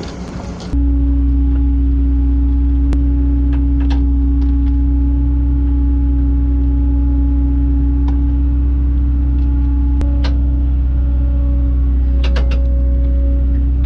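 Kobelco SK120 excavator's diesel engine and hydraulics running at steady high throttle: a loud, unchanging low drone with a steady whine on top, coming in abruptly about a second in. A few faint clicks and creaks over it.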